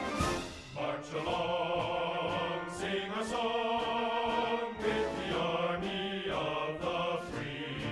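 Background music: sustained chords that change every second or so.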